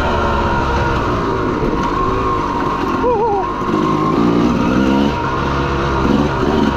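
Honda CR250 two-stroke dirt bike engine running under way, its note rising and falling with the throttle, with a brief wavering in pitch about three seconds in.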